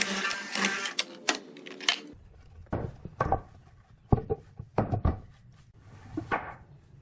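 Background music that cuts off about two seconds in, followed by scattered short knocks and scrapes.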